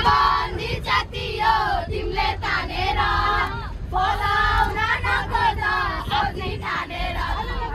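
A group of children singing together, several voices at once, over a steady low rumble.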